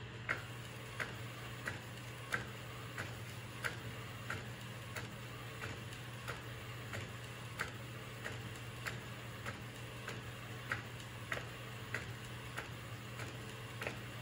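Epson P405 DTF printer printing onto roll film: a sharp click about every two-thirds of a second as the print head carriage shuttles back and forth, over a steady low hum.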